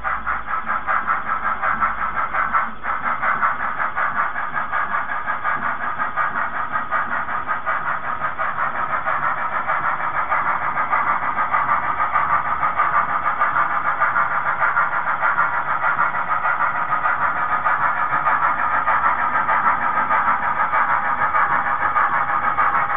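Model narrow-gauge steam locomotive's chuffing, a steady, fast pulsing rhythm that slowly grows louder as the train comes on.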